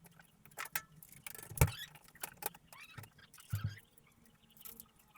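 Side panel of a PC case being fitted back on: a run of clicks and scrapes, with a sharp knock about a second and a half in and a duller one about three and a half seconds in.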